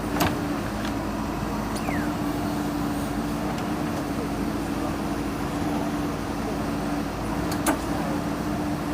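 Diesel engine of a JCB 3DX backhoe loader running steadily at a constant pitch while it digs soil, with two sharp knocks, one just after the start and one near the end.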